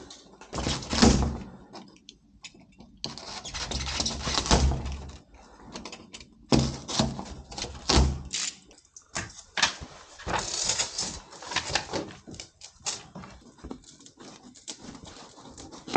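Building work on wall boards: irregular knocks, clicks and scraping as panels are handled and fitted, with a few heavier thuds.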